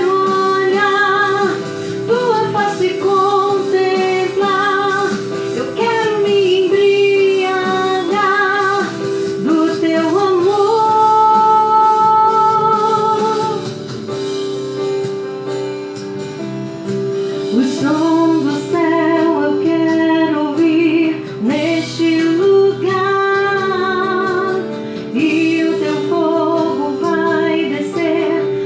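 A woman singing a Portuguese gospel worship song over instrumental accompaniment, her melody wavering with vibrato, with a long held note about eleven seconds in.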